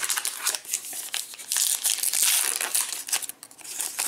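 A trading card pack wrapper being torn open and crinkled by hand, a busy crackle that is loudest about halfway through.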